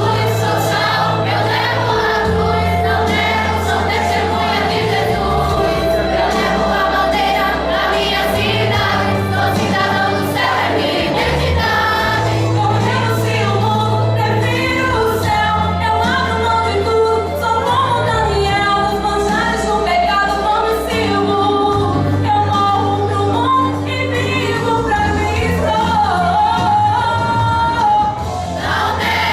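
A choir singing a gospel song over instrumental accompaniment, with held bass notes that change every second or two.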